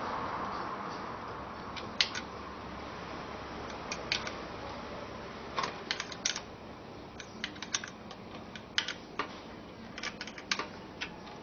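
Irregular light clicks and taps, singly and in quick little clusters, from small parts being handled while an electric fan is worked on, over a faint steady hiss.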